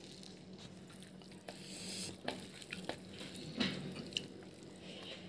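A person eating fish curry and rice with her fingers: soft, wet chewing and lip smacks, with a handful of small clicks.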